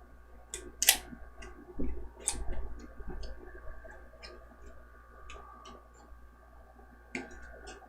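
Small retail packaging being opened by hand: scattered clicks and snaps of cardboard and plastic, with the loudest snaps about a second in and just after two seconds.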